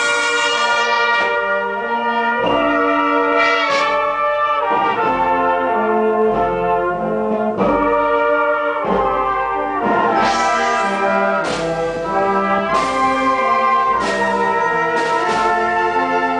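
Brass band playing a march: trumpets and trombones carrying the tune over a low bass line, with regular drum or cymbal strokes.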